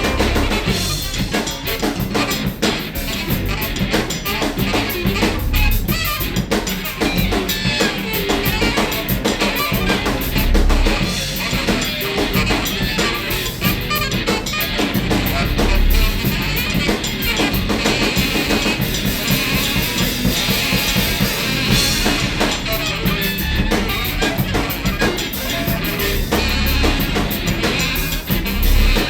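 Free-jazz band playing a dense improvised passage, with a busy drum kit of snare, rimshots and bass drum to the fore.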